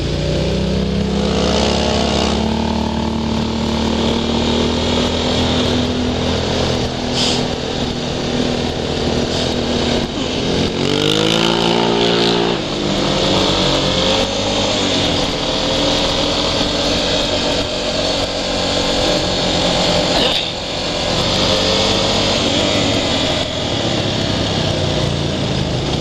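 ATV engine running under way, its pitch rising and falling with the throttle; about halfway through it revs up sharply, then drops off abruptly as the throttle is let off or it shifts. Wind rushes steadily over the microphone.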